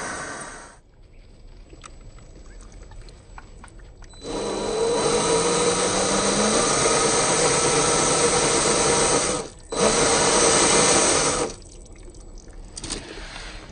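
A 1/10-scale RC crawler's 27T brushed electric motor and geared drivetrain whirring under throttle in two bursts: one starting about four seconds in and running about five seconds, then after a brief break a shorter one of about two seconds. Between the bursts it is much quieter, with faint scattered ticks.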